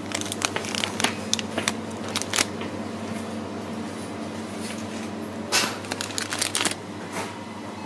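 Plastic sweets wrapper crinkling and crackling in the hands as it is handled and opened, with a longer rustle about five and a half seconds in. A steady low hum runs underneath.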